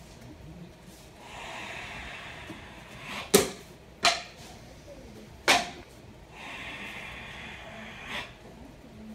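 Sanchin kata: two long, forced hissing breaths by the karate student. Between them come three sharp smacks of the examiner striking the student's tensed bare body to test the stance.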